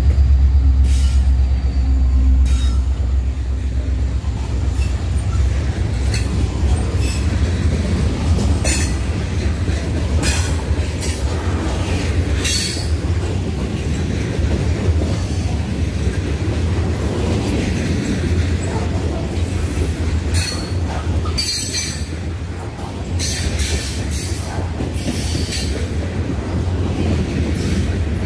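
Freight train of covered hopper cars rolling past close by: a continuous rumble of steel wheels on rail, heaviest in the first few seconds. Short high squeals and clicks from the wheels come at irregular intervals.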